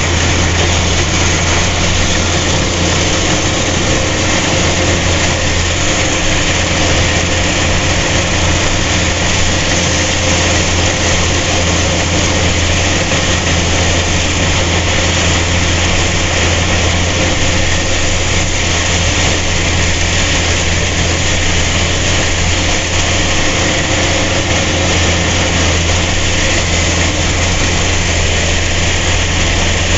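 Engine of harvesting machinery running steadily at constant speed for the whole stretch, with a strong low hum under a dense mechanical din.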